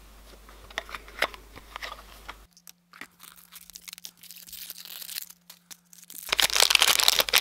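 Small plastic clicks and taps as toy figures and their plastic food-shaped containers are handled. About six seconds in, loud crinkling and tearing of a foil blind-bag wrapper being opened.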